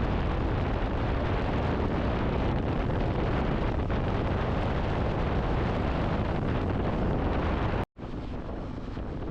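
Wind rushing and buffeting over the microphone of a moving motorcycle at highway speed, a steady heavy rumble. About eight seconds in it cuts out for an instant and continues quieter.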